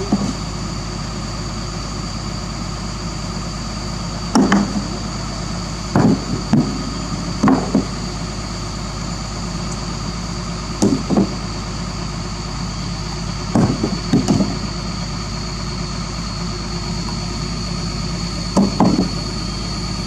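Doosan DX225LC crawler excavator's diesel engine idling steadily, with short clunks of rocks being handled and knocked against each other and the ground. The clunks come in small groups every few seconds, about nine in all.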